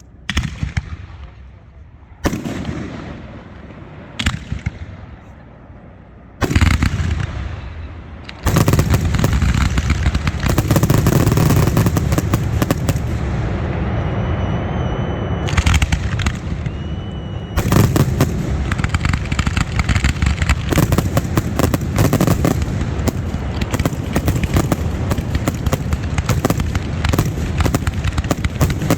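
Fireworks going off: a few single bangs about two seconds apart, then from about eight seconds in a dense, continuous barrage of rapid bangs and crackling.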